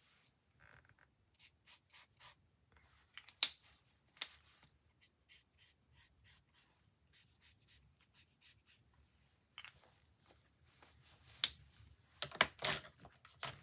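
Marker nib stroking on card stock: faint, scattered short scratches and taps as the colour is laid on, with a few louder clicks, the loudest about three and a half seconds in and several near the end.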